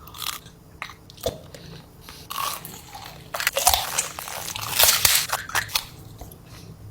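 A person biting into and chewing crunchy food close to the microphone, with irregular crunches and crackles throughout.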